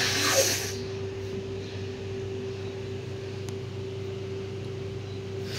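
A forceful blast of air through the nose, cut off less than a second in, then only a steady background hum with a faint thin whine, and a short puff of breath at the very end.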